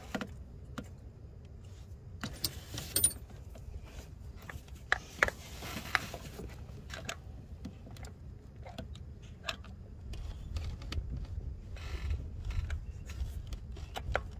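Irregular metallic clicks and clinks of a ratchet and socket extension being worked by hand down a spark plug well under a wiring harness, with a low rumble from about ten seconds in.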